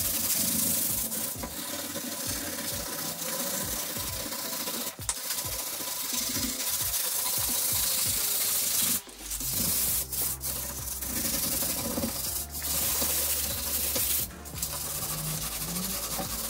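A kitchen countertop being sanded by hand with sandpaper, a steady scratchy rubbing back and forth with short pauses, roughening the surface to prepare it for paint.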